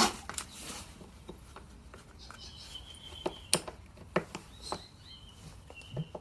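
Scattered light clicks and taps of a concealed hinge being handled and test-fitted into the freshly drilled cup hole in a cabinet door, a check that the hole is deep enough.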